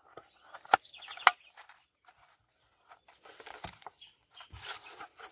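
Hands handling a corrugated metal loaf tin: three sharp clicks and taps of fingers on the thin metal, and a short rustle near the end. Birds chirp faintly in the background.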